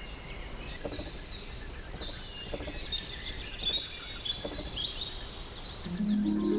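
Forest ambience of insects trilling in a dense, pulsing high-pitched chorus, with many short chirps scattered through it. Music with sustained notes comes in near the end.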